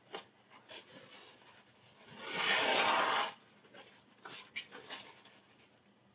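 A paper towel rustling and slicing as it is drawn across the edge of a sharpened chef's knife, in a paper-cutting sharpness test. It comes as one burst of a little over a second near the middle, with faint paper-handling rustles before and after.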